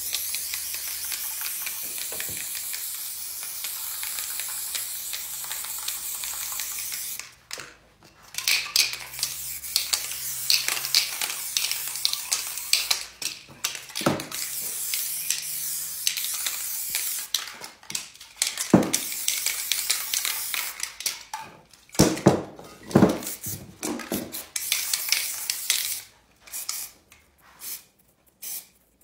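Aerosol spray paint cans hissing in long continuous sprays, broken by a short pause about seven seconds in. Then come shorter sprays with a few knocks between them, and a series of quick short bursts near the end.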